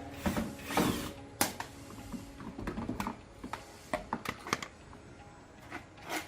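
Scattered sharp clicks and knocks with a few short scrapes, like tools and metal parts being handled at a workbench; the longest scrape comes about a second in and another near the end.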